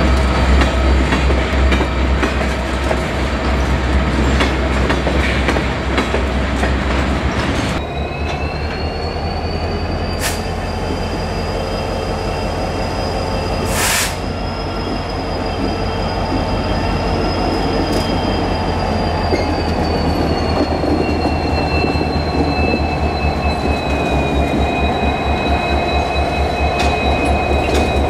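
Freight cars rolling past with a heavy low rumble. From about eight seconds in, Norfolk Southern EMD diesel locomotives pass slowly, their engines pulsing in a steady low beat under several high whining tones that slowly fall in pitch.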